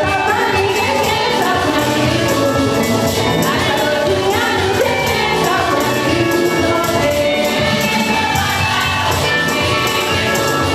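Choir or congregation singing a gospel hymn, with a steady beat and percussion.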